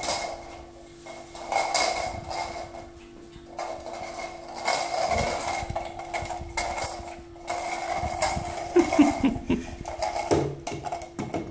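Small toy ball knocking and clattering irregularly across a tile floor as a Yorkshire terrier puppy chases and pushes it, with scrabbling on the tiles, over a faint steady hum.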